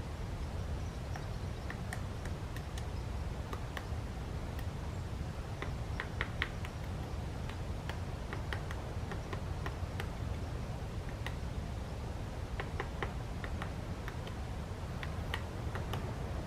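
Woodpecker pecking and probing at a tree, giving short, sharp taps at an irregular pace, often in small clusters of two to four, over a steady low rumble.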